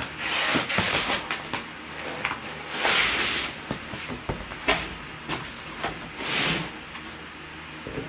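Cardboard box and packaging being opened and handled: several bursts of rustling and scraping with small knocks in between.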